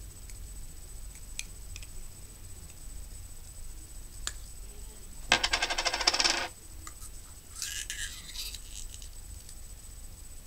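Small objects being handled: a rapid rattle of many quick clicks, lasting a little over a second about halfway through, followed by a brief rustle.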